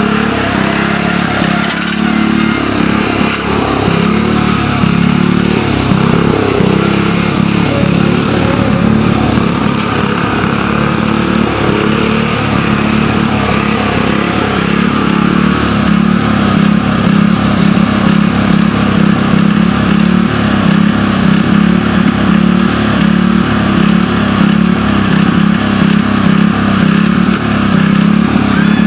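Riding lawn tractor's engine running loud and steady as it is driven through a course, getting a little louder about halfway through.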